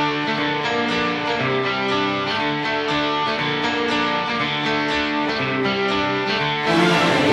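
Background music with plucked and strummed guitar; it becomes fuller and a little louder near the end.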